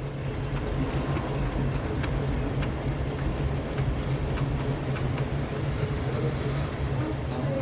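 Front drive shaft of a Fiat Fastback rocked by hand, its loose tripod (tulip) joint inside the gearbox knocking in faint, repeated clicks about twice a second over a steady low hum. The play in the worn joint is what causes the car's suspension noise.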